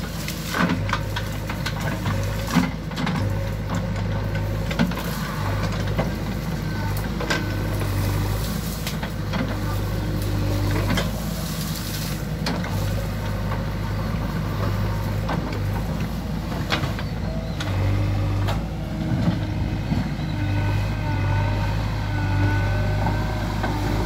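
JCB 3DX backhoe loader's diesel engine running under working load, its low note swelling and easing every second or two as the hydraulics work the backhoe arm. Sharp cracks and knocks throughout as the machine pushes through the brush.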